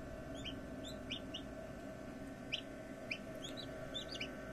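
Chicks peeping: a dozen or so short, high, downward-sliding peeps at irregular intervals, over a steady low hum.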